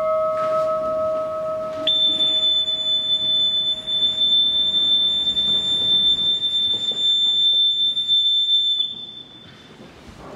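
The ring of a struck bell dies away over the first two seconds; then a single high whistle note starts and is held steady for about seven seconds before it trails off near the end, as from a bosun's call.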